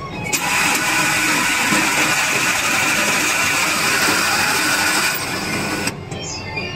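Seven Bank ATM's banknote-handling mechanism whirring steadily as it takes in and stores the deposited notes after the amount is confirmed. It starts just after the opening and stops about six seconds in.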